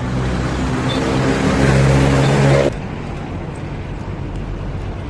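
A motor vehicle's engine running close by, growing louder, then cut off suddenly about halfway through; a quieter, steady road-traffic noise follows.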